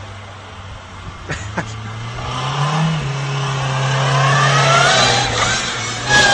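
Volkswagen Golf Mk3 hatchback's engine revving as its wheels spin, with tyres squealing in sliding pitches from about two seconds in and growing louder. Two sharp clicks come shortly before the squeal, and a loud burst of noise comes at the very end.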